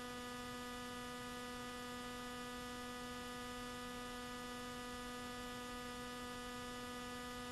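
Steady electrical hum on an old recording's soundtrack: a faint, unchanging buzzy tone with a row of overtones over light hiss.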